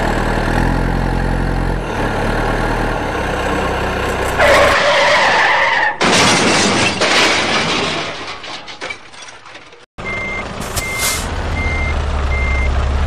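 Dubbed heavy-truck sounds: a truck engine running, then a loud rushing hiss about four and a half seconds in that trails away. After a brief cut the engine runs again under a reversing alarm beeping about every two-thirds of a second.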